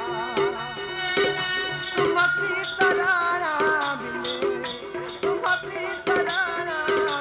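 Sambalpuri folk music: dhol drumming with sharp metallic strikes about twice a second, under a wavering melody line.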